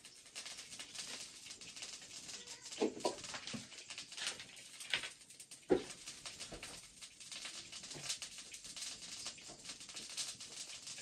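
Open wood fire burning under a wok, with a steady faint crackle and hiss. A few short, louder sounds come about three seconds and six seconds in.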